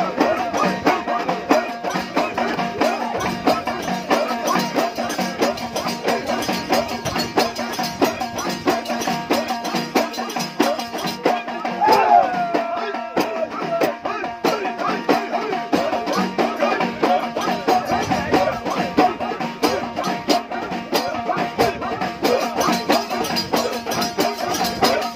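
Abidat Rma folk music: a men's troupe chanting over rapid, dense percussion, with a steady held tone running underneath.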